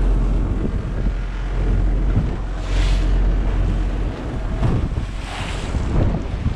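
A boat under way at sea: wind buffeting the microphone over the steady low drone of the engine, with the wake churning and splashing. Two louder washes of spray come about three and five and a half seconds in.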